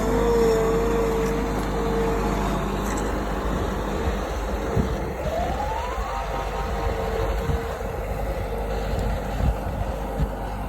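Heavy machine engine running with a steady whine. About five seconds in, a second whine rises in pitch, and there are a few short knocks.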